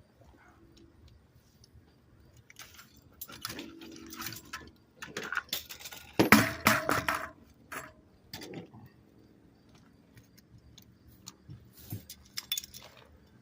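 Metal bicycle parts and tools clinking and rattling as they are handled, in irregular clusters of sharp clicks, with the loudest clank about six seconds in and a last cluster near the end.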